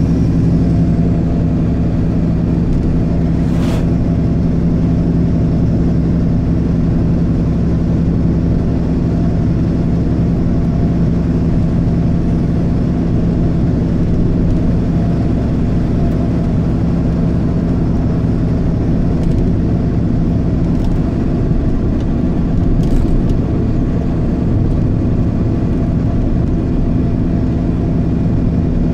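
Road vehicle's engine running steadily at cruising speed, with tyre and road noise, heard from the moving vehicle. A single sharp click about four seconds in.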